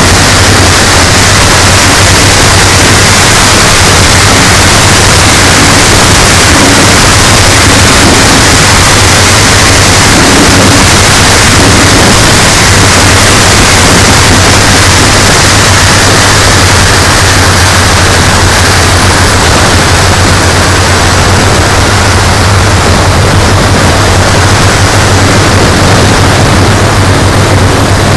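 Loud, steady, hissing engine noise from a radio-controlled model aircraft, so loud that the recording is close to overloaded, with a constant low hum underneath.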